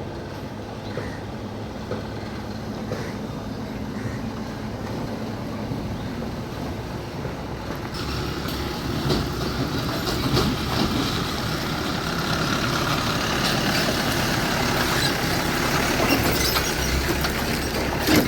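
Steady vehicle rumble and hiss, growing louder about eight seconds in.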